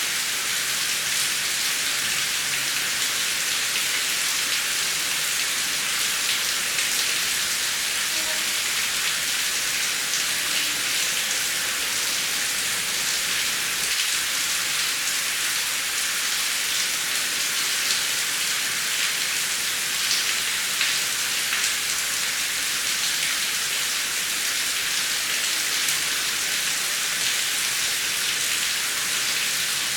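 Heavy rain falling steadily: a dense, even hiss with single drops striking through it.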